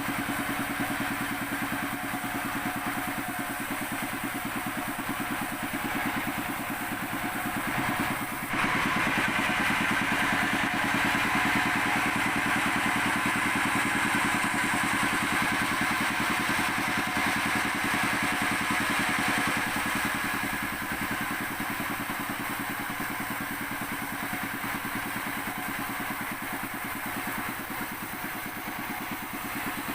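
Sawmill saw machine running steadily. About eight seconds in it abruptly turns louder and brighter, and it eases back down after about twenty seconds.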